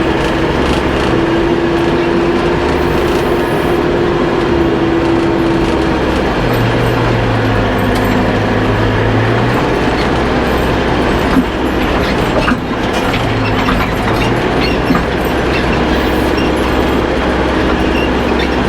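Backhoe tractor's engine running steadily, its note changing about six seconds in, with a few short metallic knocks near the middle.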